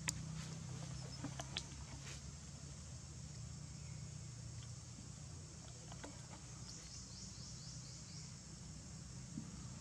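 Faint outdoor ambience: a steady low hum under a few sharp clicks in the first two seconds, and a quick run of short high chirps about seven seconds in.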